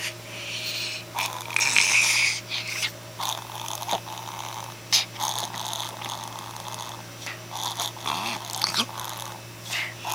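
A dog's noisy, laboured breathing in irregular bursts, loudest about two seconds in: the sign of a breathing problem.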